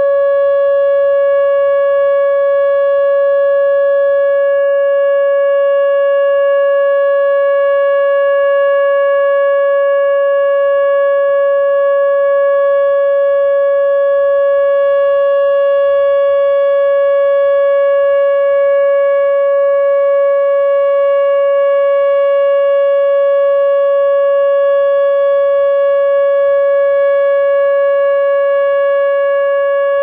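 Whelen WPS-2910 electronic outdoor warning siren sounding its steady alert tone: one held pitch with strong overtones, unchanging.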